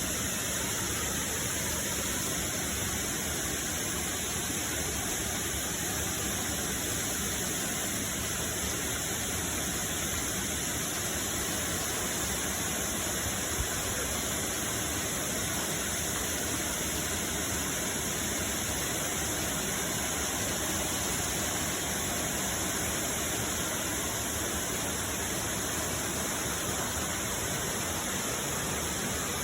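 Steady rush of a waterfall and mountain stream, an even hiss of falling water with no changes.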